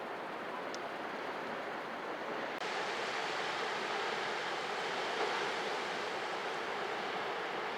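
Sea surf washing ashore in a steady rush of water noise. About two and a half seconds in, the rush turns suddenly brighter and a little louder.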